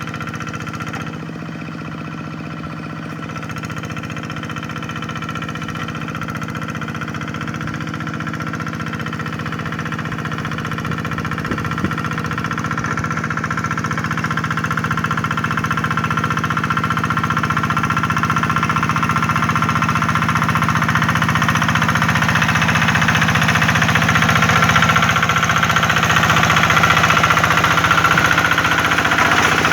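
Hand tractor (two-wheel walking tractor) engine running steadily while ploughing a rice paddy, growing gradually louder.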